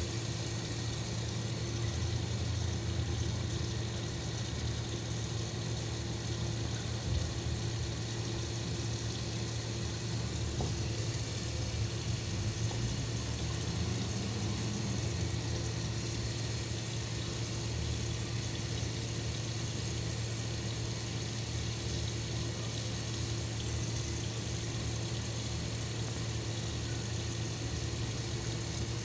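Water running steadily in an even rush, with a steady low hum underneath.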